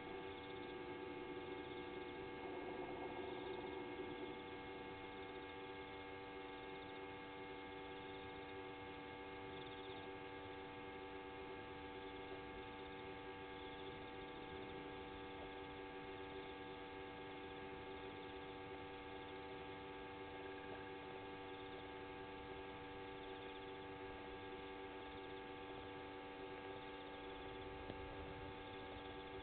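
Faint, steady electrical hum: several constant tones over a low hiss, with a slight rise in level about two to four seconds in.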